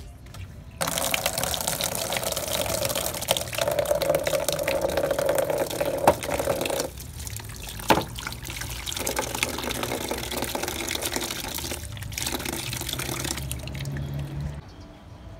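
Water pouring and splashing into a plastic basin as vegetables are washed in it. A couple of sharp knocks come around the middle, and the pouring stops shortly before the end.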